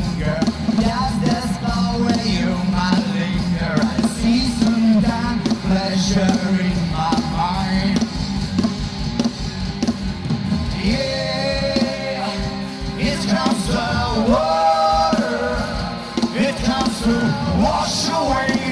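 Live rock band playing: a male singer over electric guitar, bass and a Yamaha drum kit. Between about 11 and 15 seconds in, long notes are held.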